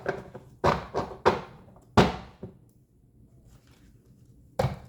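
Tarot cards and deck being handled on a tabletop: four sharp thunks in the first two seconds, then one more near the end.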